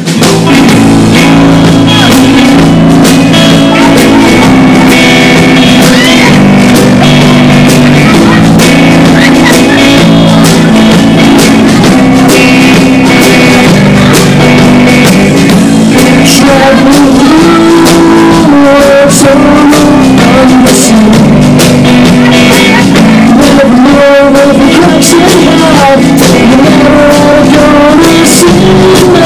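Live rock band playing loud, with electric guitar, bass guitar and drum kit, and a singer at the microphone.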